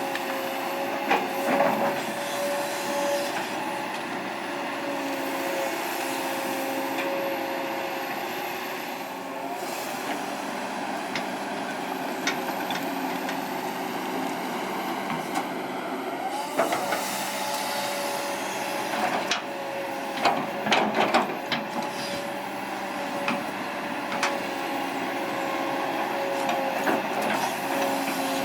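Kobelco SK200-8 hydraulic excavator working, its diesel engine running steadily with a high hydraulic whine, and scattered knocks from the machine's digging, most of them in a cluster about two-thirds of the way through.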